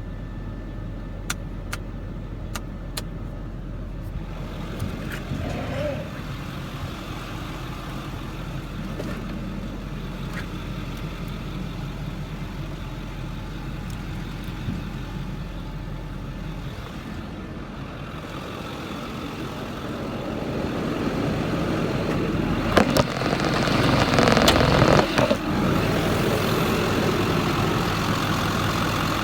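Ford 6.4 Power Stroke V8 turbo-diesel idling, muffled at first and growing louder over the second half, with a few sharp clicks and knocks about three-quarters of the way through.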